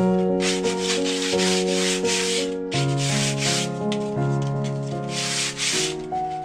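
A yellow sanding sponge rubbed by hand along a thin wooden strip: quick back-and-forth sanding strokes, about two a second. The strokes stop shortly before the end.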